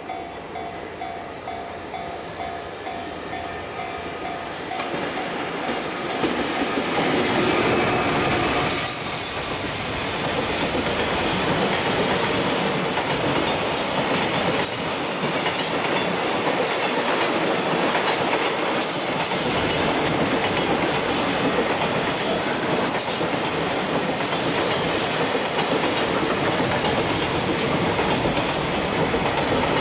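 A level-crossing alarm rings in a steady pulsing pattern while a train approaches, then an EF200 electric freight locomotive passes close by a few seconds in. A long string of freight wagons follows, clattering steadily over the rail joints.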